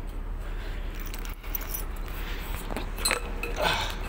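Light metallic jingling and clinking from someone climbing a steel wall ladder, over a steady low hum, with two louder jingles near the end.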